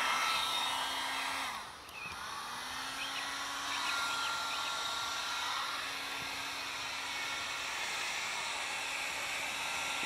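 Electric heat gun running steadily, its fan blowing with a motor hum, with a brief drop in level and pitch about two seconds in. It is heating the glass face of a colour CRT to soften the cataract-clouded bonding under its safety panel.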